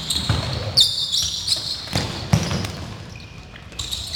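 Dodgeball game on a wooden sports-hall floor: rubber balls thudding against the floor and players, with a sharp thud about two and a half seconds in, and sneakers squeaking on the floor about a second in and again near the end.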